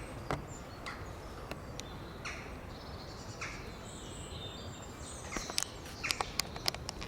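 Rope being wrapped and pulled through while a quick-release knot is tied, giving scattered short clicks and rustles that come more often in the last couple of seconds. Under it is steady outdoor background noise with a few faint, high bird chirps.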